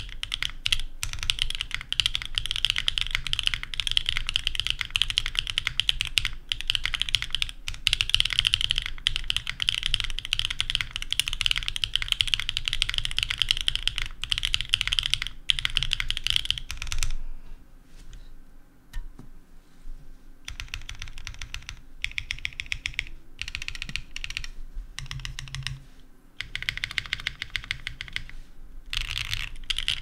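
Fast typing on a custom mechanical keyboard, an aluminum Ciel65 case with an aluminum plate, stock Akko Cream Yellow Pro switches and GMK keycaps, giving a clacky sound. The typing stops for a few seconds a little past halfway, comes back in lighter, broken bursts, then picks up to a steady run again near the end.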